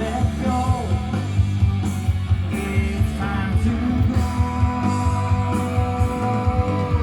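Progressive rock played back loud through a John Linsley Hood 1969 class-A hi-fi amplifier and loudspeakers: a heavy, steady bass beat under held notes and a singing voice.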